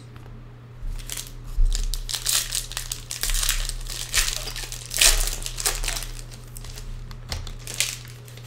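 Foil trading-card pack wrapper crinkling and tearing as it is opened by hand. The dense run of crackles starts about a second in, is loudest near the middle and thins out near the end, over a low steady hum.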